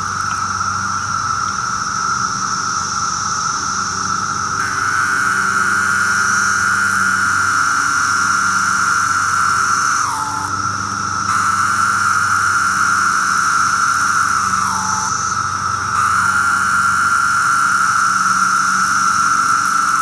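Magicicada septendecim periodical cicada singing its 'pharaoh' call: loud, long buzzing calls that each drop in pitch at the end, three times, over a steady high-pitched drone.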